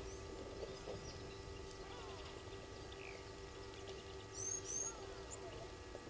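Wild birds calling and chirping, with many short chirps and whistles scattered throughout and two sharp high chirps close together about four and a half seconds in. A faint steady low drone runs underneath and fades out near the end.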